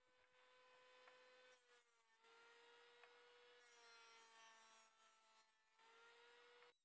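Faint electric hand planer running as it is pushed across a wooden board, a steady whine that sags slightly in pitch a few times and cuts off abruptly near the end.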